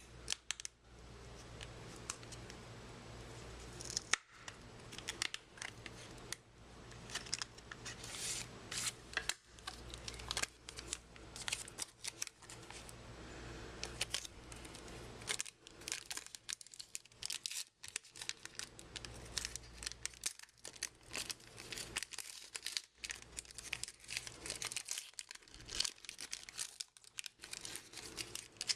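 A trading card pack's plastic wrapper being torn open and crinkled, with the cards handled, in many short irregular crackles.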